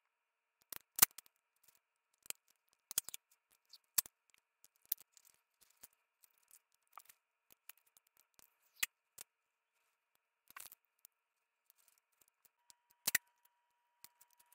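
Scissors snipping clear packing tape, with the crackle of tape-covered paper and tape being handled: a scattering of sharp clicks and short crackles, the loudest about a second in and near the end.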